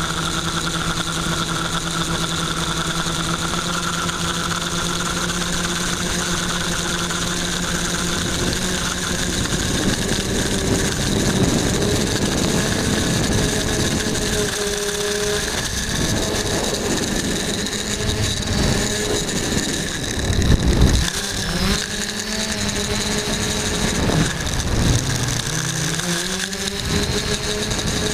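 Quadcopter's electric motors and propellers whining steadily at first, then shifting up and down in pitch with throttle changes from about ten seconds in. Bursts of low rumbling noise come and go in the second half.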